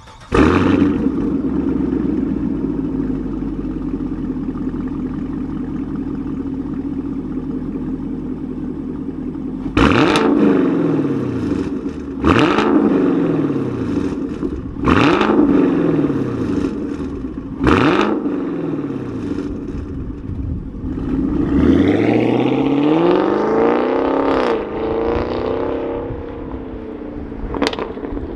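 2019 Camaro SS 6.2-litre V8 through a Corsa Xtreme axle-back exhaust: it starts with a loud bark and settles into a steady idle. After about ten seconds come four quick throttle blips about two and a half seconds apart, each rising and falling, then a longer rise and fall and one more short blip near the end.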